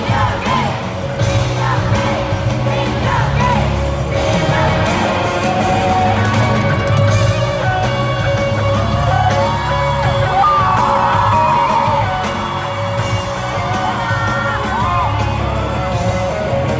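Loud live concert music with a heavy bass line, a singer, and a crowd of fans yelling and singing along.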